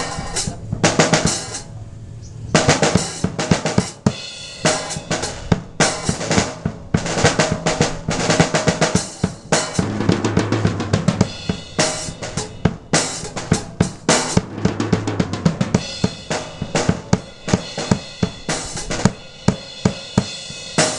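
A drum kit played continuously: fast snare and bass drum strokes with rolls and some cymbal hits.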